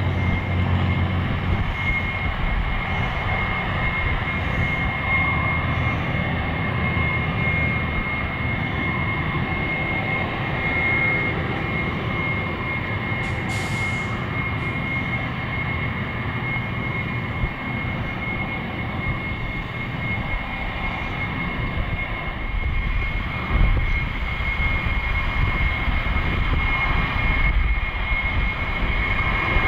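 GE90-115B turbofans of a Boeing 777-300ER running at taxi power: a steady high whine over a low rumble.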